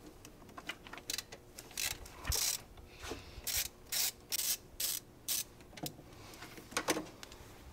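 Socket ratchet clicking in a series of short rasping strokes, about two a second through the middle, as a 13 mm bolt is backed out.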